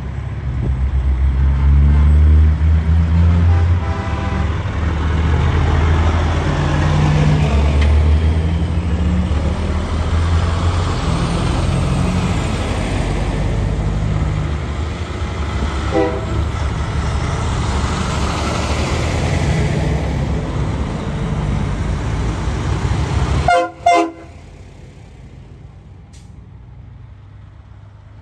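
Semi-truck tractors' diesel engines rumbling as the rigs roll past one after another, with short horn toots now and then. About four seconds before the end a louder horn blast sounds, then the engine sound drops away sharply.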